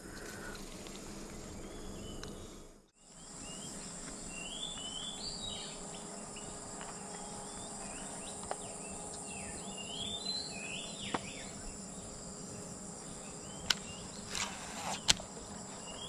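Insects droning steadily at a high pitch, with short chirping calls repeated in several clusters and a few sharp clicks.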